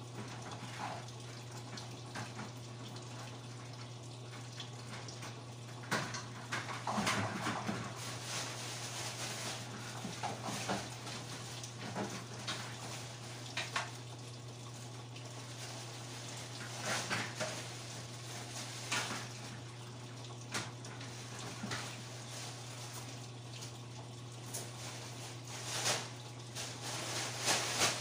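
Wire clothes hangers clinking and rattling against each other in irregular short bursts as they are handled and sorted, over a steady low hum.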